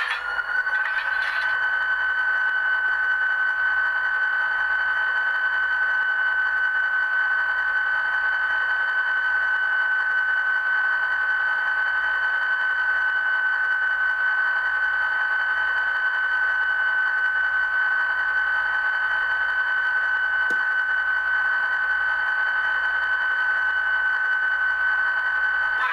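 A steady high-pitched electronic whine from an HO scale model diesel locomotive standing still. The single tone rises slightly in pitch in the first second and then holds, with a faint low pulsing underneath and one faint click about twenty seconds in.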